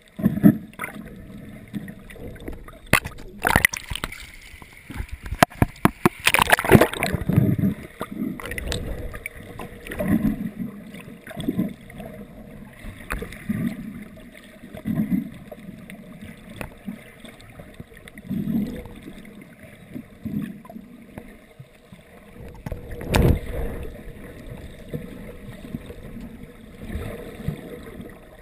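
Muffled underwater water noise heard through a GoPro dive housing: gurgling and sloshing with irregular low surges every second or two, and a few sharp knocks.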